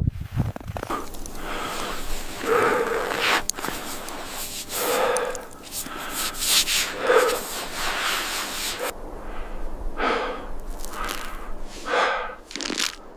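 Heavy, hoarse breathing: a loud breath about every two seconds.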